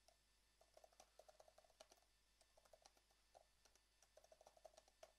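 Faint typing on a computer keyboard: quick, irregular key clicks in short runs with brief pauses between them.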